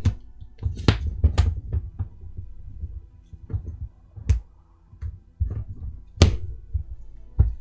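A steel ruler and a strip of tape being handled and shifted on a cutting mat: an irregular run of knocks, taps and dull thumps, with a few sharper clicks and a quieter stretch in the middle.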